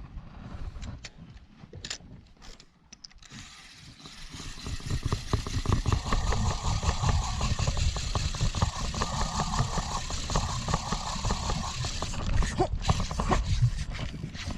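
Boat engine running, growing much louder about four seconds in as the boat speeds up, with a dense rattle and rushing noise over it.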